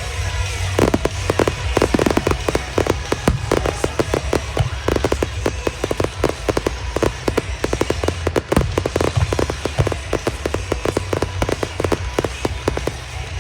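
Fireworks display: a dense, rapid run of bangs and crackles from many shells bursting in quick succession, over a steady low rumble.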